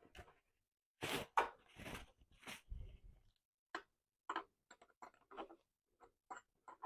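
Faint handling noise as a plastic hand is fitted onto an animatronic's arm: a few brief rustles and knocks, then a run of small clicks and taps.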